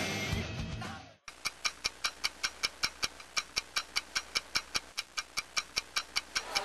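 Music fades out, and after a brief silence a steady mechanical ticking sets in, about five even ticks a second, each with a bright ringing click.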